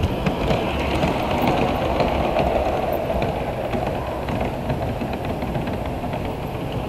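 Electric model train running on the layout track: a steady running hum with light irregular clicking of the wheels on the rails.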